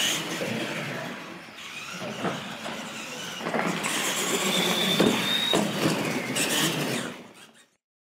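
Electric radio-controlled monster trucks running on a concrete floor: motor and gear whine that rises as a truck speeds up about halfway through, with tyre scrub and a few sharp knocks, then the sound fades out near the end.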